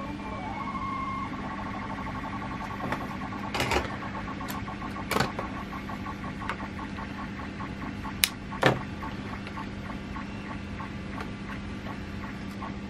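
Tools and small parts being set down and handled on a cutting mat at a soldering bench: a few sharp clicks and knocks, the loudest two close together about two-thirds of the way through, over a steady hum.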